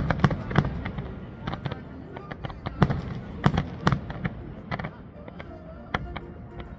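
Aerial fireworks display: many sharp bangs and crackling pops at irregular intervals from bursting shells and strobing stars, over a steady low rumble. The loudest bangs come around three to four seconds in.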